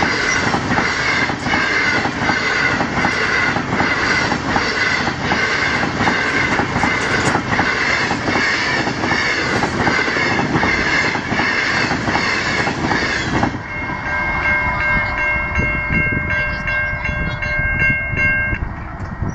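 Stainless-steel passenger cars of a long train rolling past at speed, the wheels beating a steady clickety-clack over the rail joints. About thirteen seconds in the last car clears and the rail noise drops away, leaving the level crossing's warning bells ringing on several steady pitches until they stop near the end.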